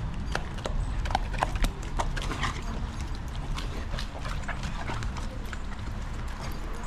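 Dogs eating raw whole sardines and walking on brick pavers: irregular sharp clicks and crunches, busiest in the first couple of seconds, over a steady low rumble.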